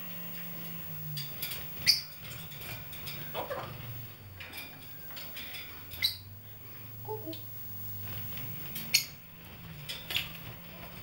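Pet parrots making scattered sharp clicks and short squeaky chirps over a low background hum.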